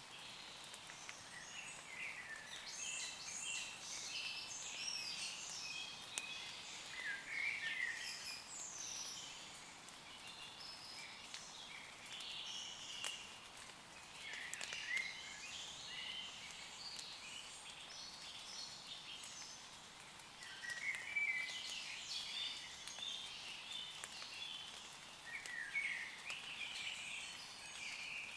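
Several songbirds singing and chirping in repeated bursts over a steady soft hiss of light rain falling on leaves, with faint scattered drop ticks.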